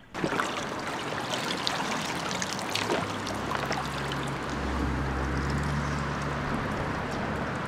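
Creek water running and splashing: a steady rush full of small splashy clicks, with a low hum joining about three seconds in.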